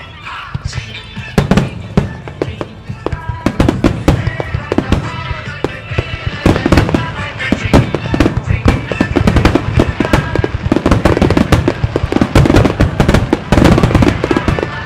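Starmine fireworks display: a rapid barrage of aerial shells bursting in quick succession, the booms coming thick and fast and growing denser from about six seconds in.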